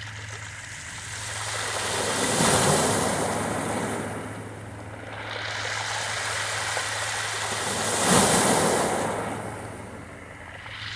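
Sea waves washing onto a beach, the surf swelling and ebbing twice, loudest about two and a half seconds in and again about eight seconds in, over a steady low hum.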